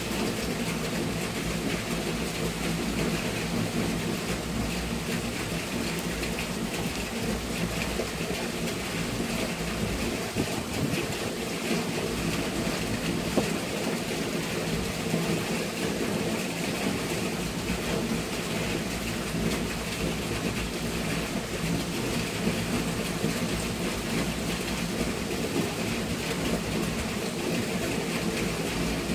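Steady rain during a thunderstorm, with low thunder rumbling on and off.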